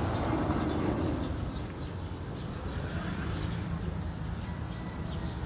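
Outdoor ambience: small birds chirping over and over in short, quick notes that fall in pitch, over a steady low rumble.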